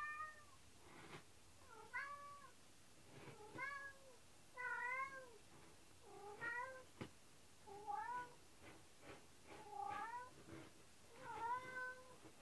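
Domestic cat meowing over and over, about eight drawn-out calls roughly one and a half seconds apart, each rising and then falling in pitch. It is the crying of a cat left alone by its owners, which they suspect comes from separation anxiety.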